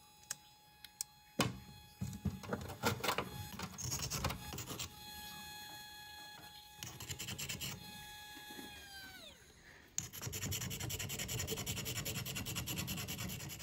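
Knocks and scrapes of a wet jade boulder being handled, over a machine's steady hum that winds down about nine seconds in. About ten seconds in, steady back-and-forth rubbing starts: a hand-held sanding stick worked over the ground window of a Moxisha jade rough.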